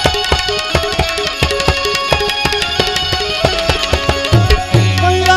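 Harmonium and tabla playing Gujarati folk-devotional music, with steady held harmonium chords under a run of quick drum strokes. A few deep tabla strokes bend in pitch about four seconds in.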